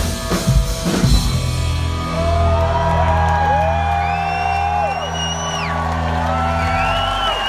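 Live rock band's closing drum hits in the first second or so, then a low bass note ringing out. Over it, audience members give long whoops, and a whistle warbles near the end as the song finishes.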